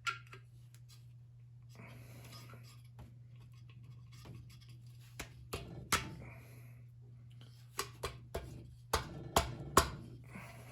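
Parts of a World War II friction-wheel siren being handled and fitted back together: scattered sharp clicks and knocks, several in quick succession near the end, with brief scraping between them, over a steady low hum.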